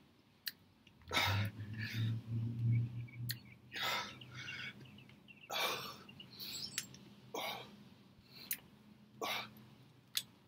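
A man breathing hard and sharply while straining through push-ups, about seven forceful breaths spaced one to two seconds apart. A low steady hum sits underneath from about one to three seconds in.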